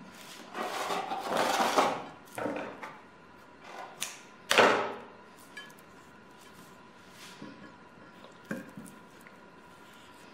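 Kitchen handling noises as kitchen string and a raw chicken are worked on a plate: about a second and a half of rustling, a few short scrapes, a louder brief swish about four and a half seconds in, then a few faint light clicks.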